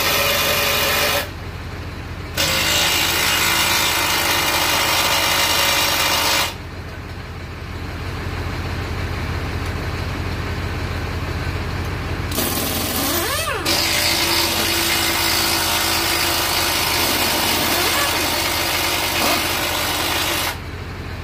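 A hand-held power tool run in three long bursts on the engine's mounting bolts of a stripped Chevy Tahoe/GMC Yukon, with a brief rise and fall in pitch between the second and third bursts. The bolts are not coming out.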